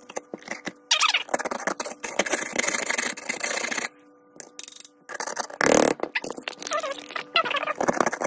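Flat-tip screwdriver scraping and chipping crumbly rust off a corroded metal trowel: rapid metal-on-metal scraping in dense runs, with a break of about a second midway and a louder stroke just after.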